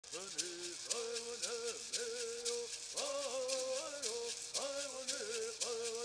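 Group of men singing a Southern California bird song in unison, in repeated rising and falling phrases. Gourd rattles are shaken along with the singing in a steady beat of about three shakes a second.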